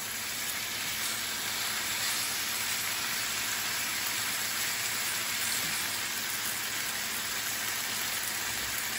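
Bite-size pork tenderloin pieces frying in oil in a nonstick skillet: a steady sizzle during a quick sear that leaves the pork not yet cooked through.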